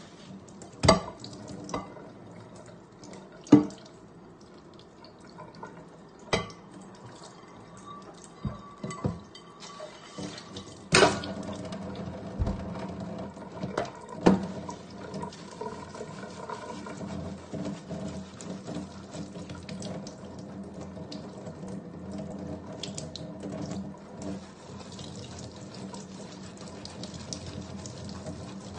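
Tap water running into a stainless steel sink while dishes are scrubbed with a sponge, with several sharp clanks of a pan and a knife knocking against the sink in the first half.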